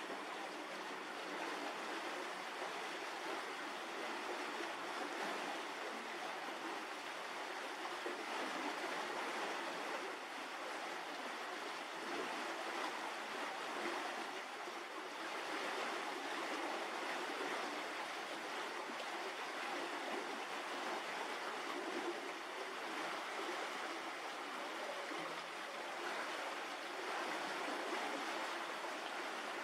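Steady, even rushing noise with no separate events, like running water or wind.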